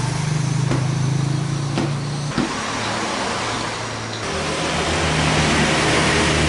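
A steady engine-like hum with a few sharp cleaver chops on a plastic cutting board in the first few seconds. About four seconds in the hum shifts lower and a hiss grows.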